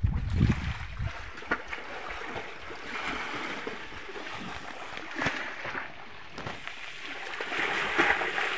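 Sea water washing against a rocky shore, with wind buffeting the microphone as a low rumble in the first second and a few sharp clicks scattered through.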